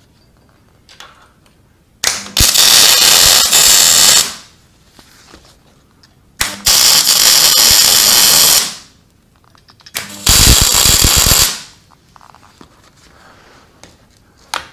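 Wire-feed (MIG) welder arc crackling as it lays short welds on steel square tubing: three bursts of about two, two and one and a half seconds, with short pauses between.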